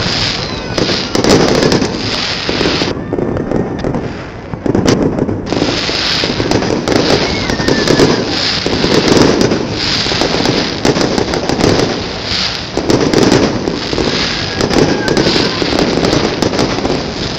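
Fireworks display: aerial shells bursting in quick succession with dense crackle, easing off briefly about three seconds in before the bursts pick up again.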